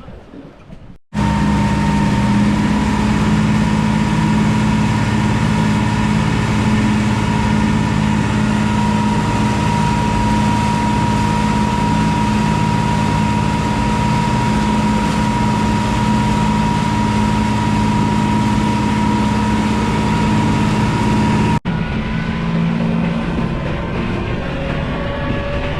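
A boat's engine running steadily at speed with the boat under way, a constant hum with a steady whine above it. It cuts off abruptly about a second in and again near the end, where it picks up slightly quieter.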